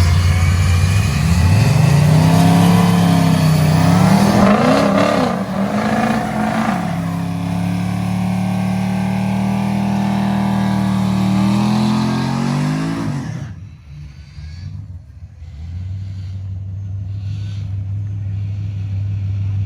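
A drag car's engine launching and running hard down the track, its pitch jumping up at the launch and then holding and climbing, before falling away about thirteen seconds in. A quieter engine idles steadily near the end.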